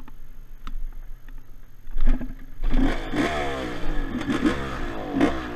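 Yamaha Blaster ATV's 195 cc single-cylinder two-stroke engine idling low, with a sharp clunk about two seconds in. Then, from about two and a half seconds in, it revs up and down repeatedly as the quad is ridden off across the sand.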